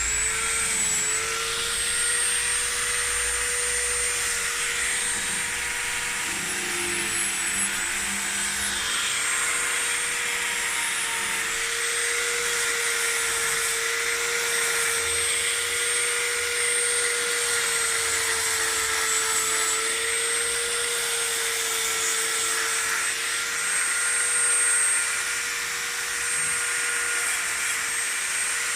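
An electric polishing tool running steadily on the freshly soldered brass candelabra arm: a continuous motor hum and whine with a hiss, its pitch dipping and recovering slightly as the work is pressed to it.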